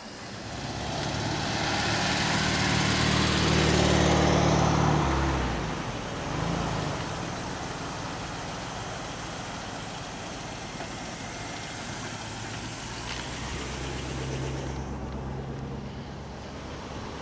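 Steam locomotive hissing steam from its cylinder cocks over a low steady hum, building up and then cutting off about five seconds in. After that, an old pickup truck's engine running as it drives past.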